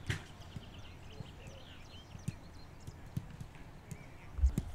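Footballs being kicked on a training pitch: a sharp thud of a ball being struck just at the start, then scattered soft thuds, and a heavier low thump near the end.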